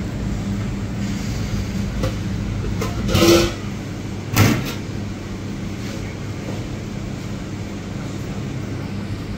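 A steady low mechanical hum, with a short louder noise about three seconds in and a sharp knock about a second later.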